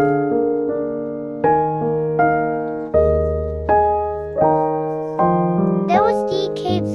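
Background piano music: struck chords that fade away, a new one roughly every three-quarters of a second. Near the end a high voice starts over the music.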